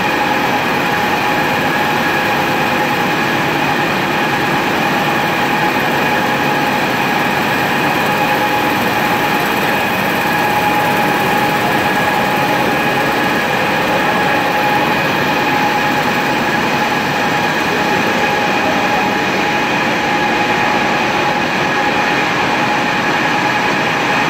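Birlikflex Firtina 6-1300 six-colour stack-type flexo printing press running at speed, its servo-driven print groups and film web making a steady, loud machine noise with a constant high whine.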